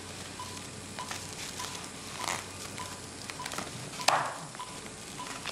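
Patient monitor beeping a short single-pitched tone with each heartbeat, about one and a half beeps a second, over rustling and crinkling of plastic and foil as the patient is handled; the loudest crinkle comes about four seconds in.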